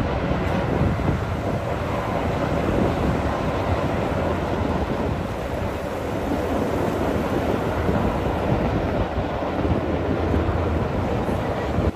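Formation of military helicopters flying overhead, a steady loud drone of rotors and engines.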